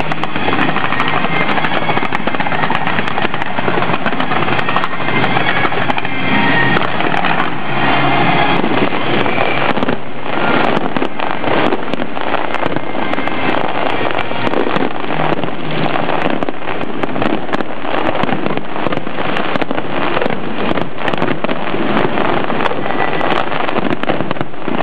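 Fireworks going off in a dense, continuous barrage of bangs and crackling, thickening into rapid popping from about ten seconds in.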